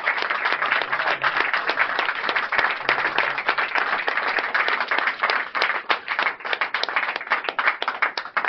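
Applause from a small crowd clapping, dense at first and thinning out to separate claps over the last few seconds.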